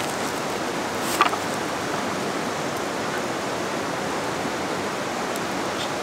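A river rushing steadily close by, with one brief sharp click about a second in.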